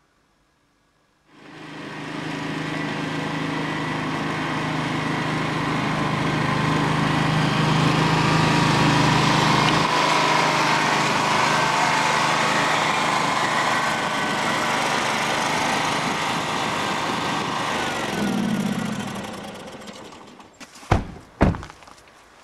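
Ride-on lawn mower engine running steadily, then dying away about three-quarters of the way through. Near the end come two sharp thumps of car doors being shut, half a second apart.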